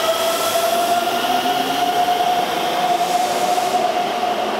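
Keikyu 600-series electric train pulling away from the platform, its motor whine rising slowly in pitch as it gathers speed over the rushing noise of the wheels. The rushing noise thins out near the end as the train draws away.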